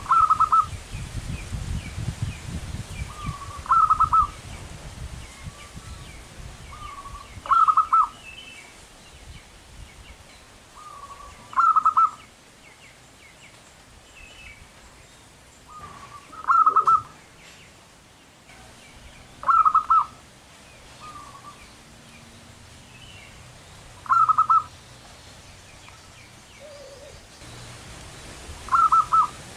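Zebra dove cooing: a soft lead-in note and then a loud rapid cooing phrase, repeated about every four seconds, eight times.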